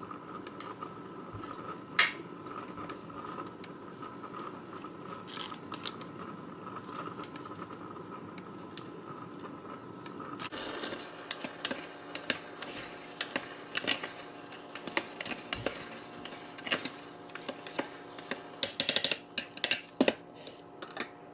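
Kitchen handling noises: scattered clicks and scrapes of utensils and containers over a steady hum that changes pitch about halfway. Near the end, a flurry of scraping and knocking as a plastic rice paddle scoops in a rice cooker's pot.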